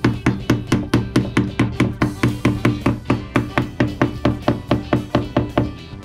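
Rubber mallet tapping rapidly and evenly on the wooden floor of a wooden bathtub at the drain fitting, about four to five knocks a second, with a short break near the end. Music plays underneath.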